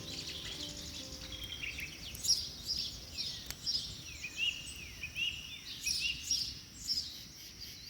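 Wild songbirds chirping and singing, with short downward-sliding calls repeating throughout, over faint low background noise.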